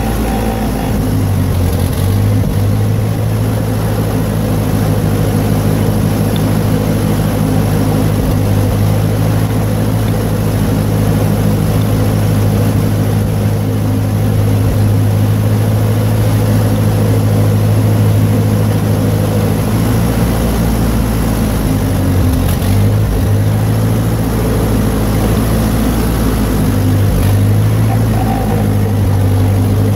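Tractor engine running steadily while spreading muck, a low steady hum whose note dips briefly a couple of times in the last third.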